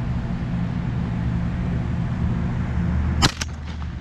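Strong wind buffeting the microphone in a steady low rumble, cut about three seconds in by a single shotgun shot, with a few faint cracks trailing after it.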